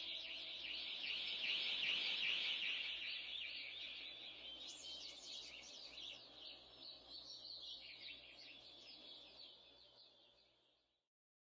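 Faint, dense chorus of birds chirping and twittering. It swells about two seconds in, then fades away and is gone shortly before the end.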